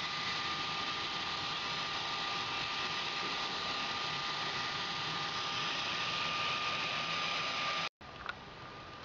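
Electric centrifugal blower fan running with a steady whirring hiss and a faint whine. About eight seconds in it cuts off abruptly, leaving a much quieter hiss and a single click.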